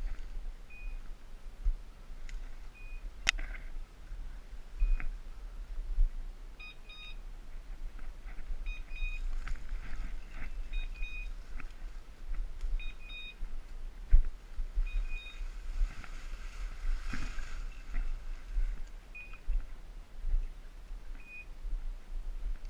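Hunting dog's beeper collar sounding short, high, same-pitch beeps every second or two, some in pairs, the point-mode signal that the dog is holding point. Under it, branches and dry leaves rustle and crackle as someone pushes through brush, with a few sharp snaps.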